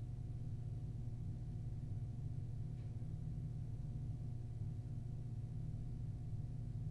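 Steady low hum of an interview room's background, the constant drone of ventilation or recording equipment, with a faint single click nearly three seconds in.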